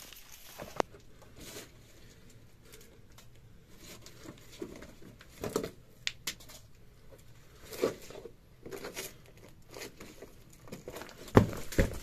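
A person scrambling down a steep slope of soft soil and dry brush: irregular crunching and rustling steps, with a few sharper knocks and one louder low thud near the end.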